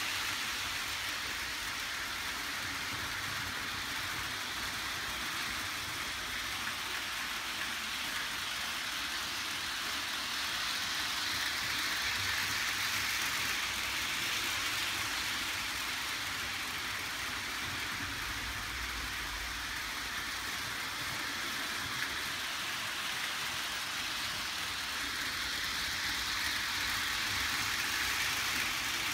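Several HO scale model trains running at once make a steady whirring noise from their small electric motors and their wheels on the track. The noise grows louder twice as trains come close.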